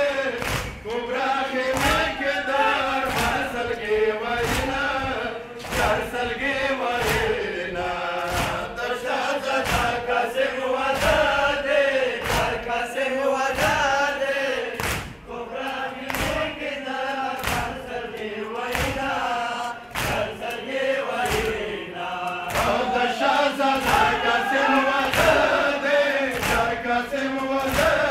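A crowd of men chanting a Pashto noha, a Shia mourning lament, led by a reciter, over a steady beat of thumps from rhythmic chest-beating (matam) in time with the lament.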